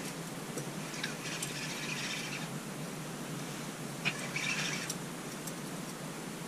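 Ice-fishing spinning reel whirring in two short bursts, about a second in and again near four seconds, the second starting sharply, as a fish is played on a bent ice rod. A steady low hum runs underneath.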